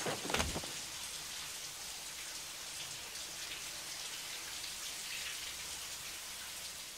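Shower spray running steadily onto a bathtub as a steady hiss of falling water, with a short thump and clatter in the first half second.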